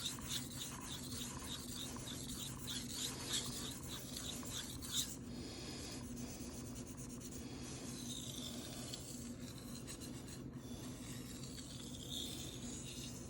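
Steel knife blade (CPM 154) stroked back and forth on a Shapton Rockstar 1000-grit whetstone, a faint, smooth rasping. Quick, even strokes for about the first five seconds, then softer. This is the sharpening pass that raises a burr on one side of the edge.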